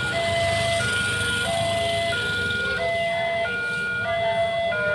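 Railway level-crossing warning alarm sounding a train's approach: an electronic two-tone signal switching between a higher and a lower tone about every 0.7 s, over the low running of motorcycle engines.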